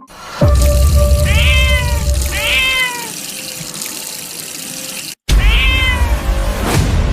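A cat meowing three times over a loud, steady rushing noise like running water. The sound cuts out for an instant about five seconds in, then the meowing and rushing resume.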